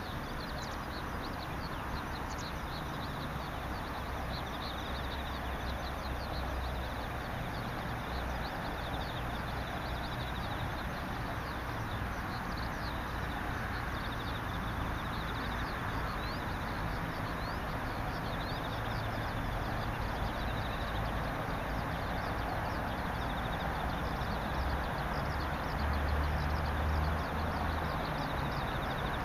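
Birds and insects calling: many short high chirps and an on-and-off high insect buzz, over a steady hiss and a low rumble.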